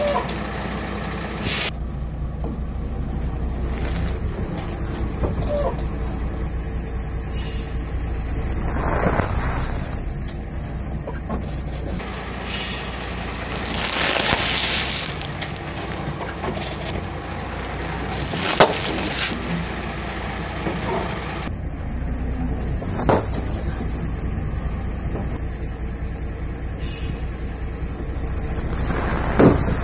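A truck's engine runs steadily while its tyre slowly rolls over packaged snacks and food, crackling the plastic wrappers. Three sharp pops stand out, spread through the second half, as packets give way.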